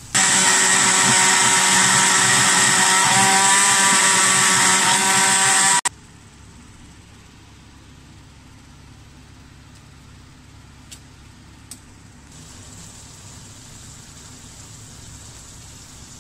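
An electric kitchen appliance motor runs loudly at a steady pitch for about six seconds, then cuts off suddenly. A faint steady hiss follows, with two small clicks.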